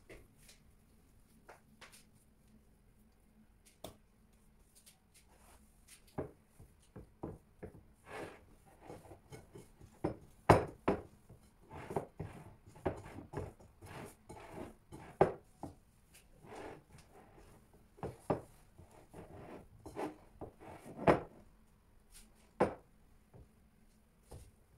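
Rested bread dough being worked by hand in a bowl: irregular soft slaps, squelches and knocks against the bowl. They are sparse at first and come thick and fast from about six seconds in.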